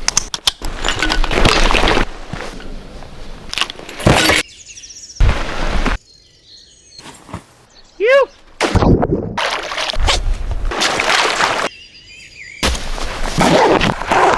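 A rapid string of short outdoor sound clips cut hard one after another, noises and sharp clicks changing every second or so, with a single chirp that falls in pitch about eight seconds in.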